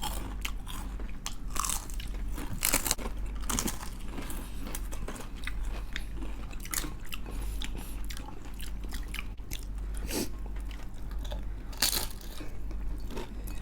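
Close-up crunching and chewing of crispy fried chicken skin: many irregular crackly bites and chews.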